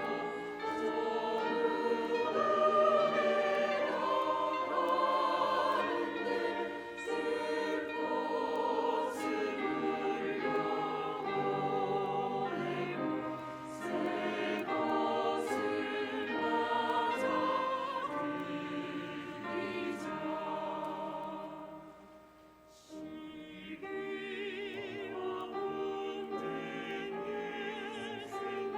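Church choir singing a hymn in harmony, with vibrato in the voices. The sound drops away briefly about three-quarters of the way through, then the singing picks up again.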